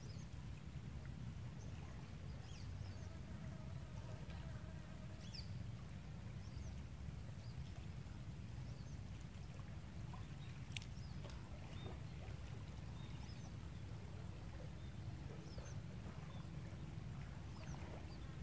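Quiet riverside ambience: a low steady rumble with faint, scattered short chirps and a thin, steady high whine.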